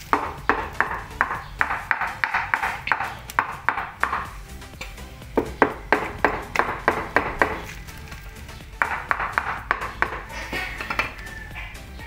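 Ceramic tile being knocked by hand to seat it in fresh cement mortar on a stair riser: quick, irregular runs of sharp taps, pausing briefly a little before the middle and again later, over background music.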